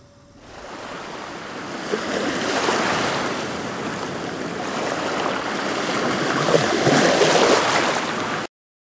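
Waves washing ashore, a loud rushing noise that swells and eases, starting about half a second in and cutting off abruptly near the end.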